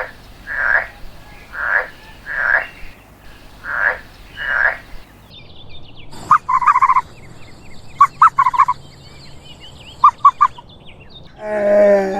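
Poultry calling. About six short, evenly spaced calls come first, then three short, rapid rattling bursts.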